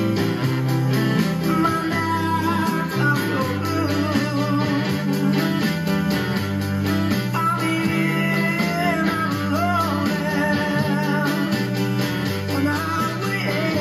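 Band music led by guitar over a bass line that steps from note to note, with a wavering melody line above.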